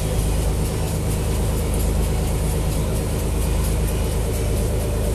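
Tour boat's engine running steadily under way, a low, even drone, with water rushing and splashing along the hull.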